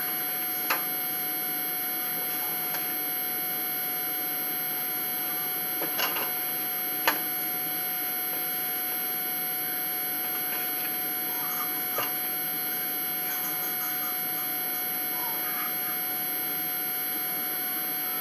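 Steady background hiss with a faint constant electrical whine, broken by a few light clicks and taps, about four spread through, from hands shaping cookie dough and handling a plastic tub of dough.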